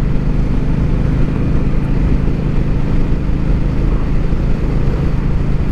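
Motorcycle cruising at a steady speed, heard from a helmet mic: a steady engine drone under heavy low rumbling wind noise on the microphone.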